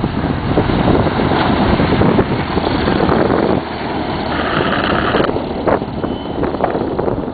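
Light single-engine propeller airplane running as it rolls along the runway and passes close by, louder and brighter as it goes by about four to five seconds in. Wind buffets the microphone throughout.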